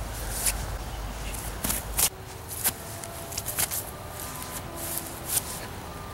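Footsteps and rustling on grass: a scattering of soft, sharp clicks and scuffs. A low wind rumble stops about two seconds in, and faint steady tones sound under the rest.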